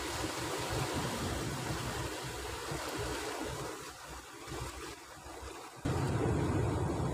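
Surf breaking and washing against a rocky shore, with wind rumbling on the microphone. A louder low rumble comes in suddenly near the end.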